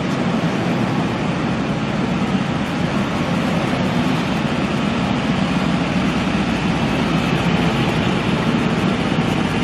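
Steady mechanical drone with a hiss over it, heard inside a standing 12-series passenger coach.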